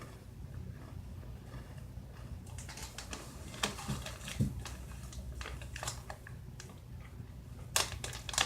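Someone chewing a crunchy oven-baked pretzel snack, with irregular crisp crunches that start about two and a half seconds in.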